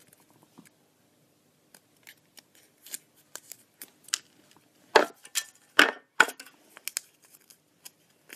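Small folded paper slips being handled and unfolded by hand: a string of crisp rustles and crackles, loudest in a cluster a little past halfway.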